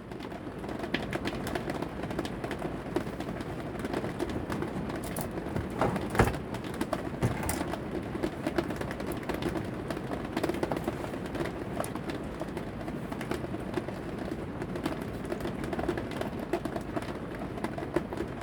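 Rain with light hail hitting the roof of an RV camper trailer, a dense steady patter of small impacts, with one sharper hit about six seconds in.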